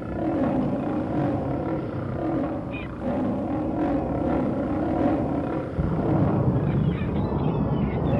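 Monster sound effect: a continuous growling roar over a low rumble, louder from about six seconds in.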